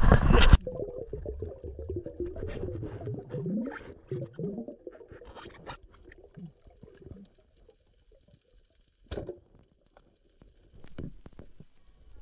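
Underwater sound picked up by a diver's camera: a muffled low rumble with scattered clicks and crackles and a few short gliding low tones, plus two sharper clicks near the end. It starts right after a brief loud rush of noise in the first half second.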